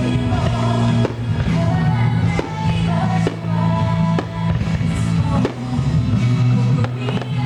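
Loud music with singing and drums, with fireworks bursting through it in irregular sharp bangs.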